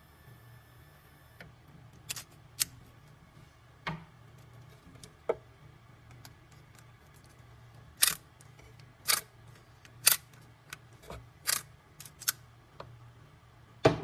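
About a dozen sharp, irregular clicks and knocks, coming more often and louder in the second half, over a faint steady low hum.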